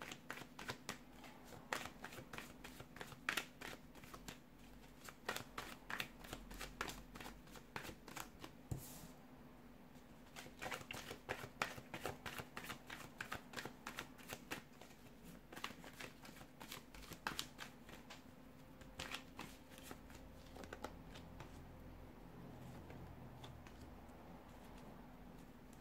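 A deck of tarot cards being shuffled by hand, a long run of quick papery clicks and riffles, with cards drawn and laid down on the cloth-covered table. The shuffling thins out to a few scattered clicks in the last several seconds, over a faint steady hum.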